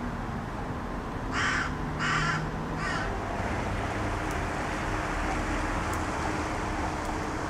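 A crow cawing three times in quick succession, the third call shorter and weaker, over a steady low background rumble.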